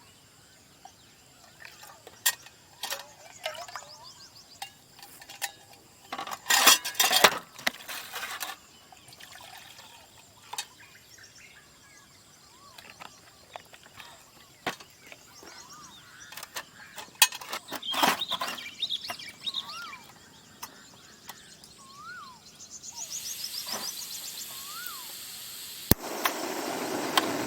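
Scattered clinks and knocks of things being handled, thickest a few seconds in, with a few short bird whistles that rise and fall. Near the end a steady hiss starts and grows fuller.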